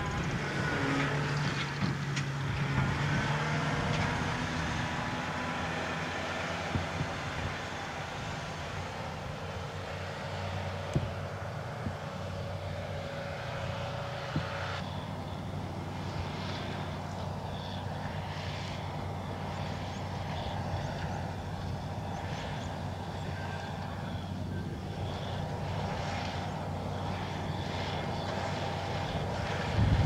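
Heavy farm diesels running steadily. In the first few seconds a tractor hauling a trailer goes past. Then comes the steady running of the Dewulf RA3060 self-propelled potato harvester, with its Deutz six-cylinder diesel, as it lifts potatoes, with a few sharp clicks.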